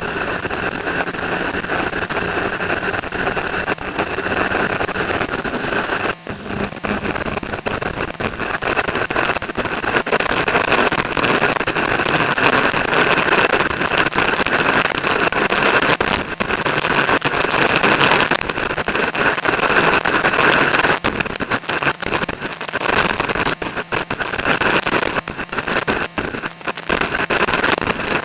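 Strong wind rushing over the microphone in gusts, with a vehicle running under it.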